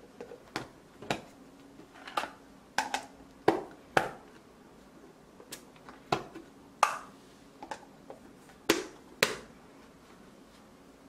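White plastic lids being pressed and snapped onto the rims of glass jars, making a series of a dozen or so sharp, irregular clicks and snaps.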